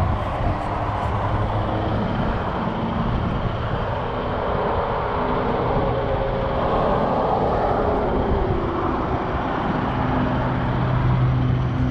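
Can-Am Spyder three-wheeler's engine running as it rolls slowly and turns across a lot, a steady mechanical noise whose low hum grows stronger near the end.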